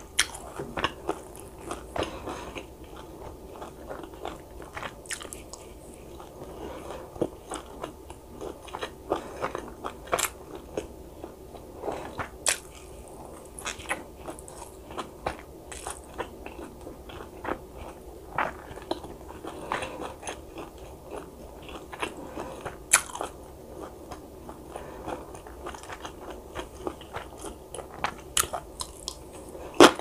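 A person chewing and biting food close to the microphone, with frequent irregular sharp crunches over steady chewing.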